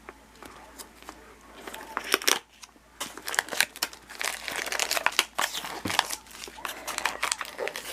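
Crinkling and tearing of small wrapper packets being handled and torn open, sparse at first and busy from about a second and a half in, with a short pause in the middle.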